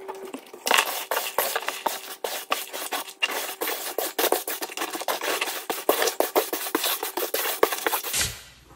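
Hands rubbing and smearing powdered chalk across a metal pan: a dense, crisp scratching made of many small rapid crackles, starting about a second in and stopping abruptly just after eight seconds.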